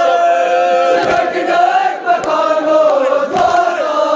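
A group of voices chanting a Kashmiri noha, a Shia lament, together, holding long notes in a slow, wavering melody.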